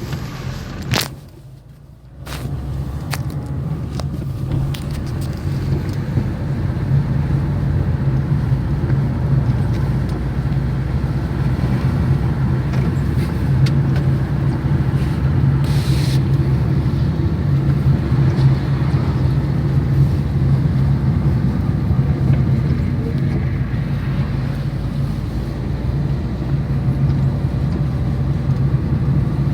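Car driving on a road: a steady low engine drone with road rumble.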